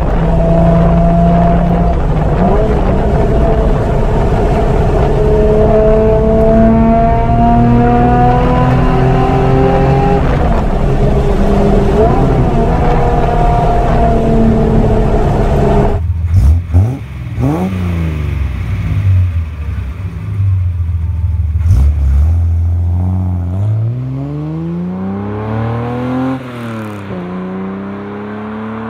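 Datsun 240Z's straight-six engine heard from inside the car, pulling up through the gears, its pitch climbing steadily and dropping back at each shift. About halfway this cuts off suddenly and a car engine is heard from the roadside, its note rising and falling repeatedly as it comes closer.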